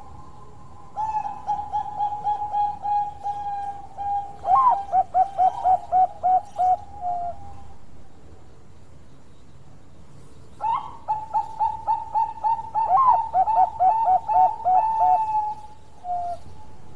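Zebra dove (Bangkok-line perkutut) singing its cooing song in two bouts, each a fast run of short staccato coos lasting about six seconds; the second bout starts about ten seconds in.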